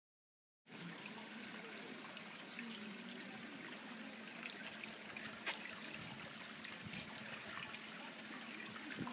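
Fountain water trickling and running over a stone basin, a steady wash starting abruptly just under a second in, with small ticks and one sharp click about halfway through.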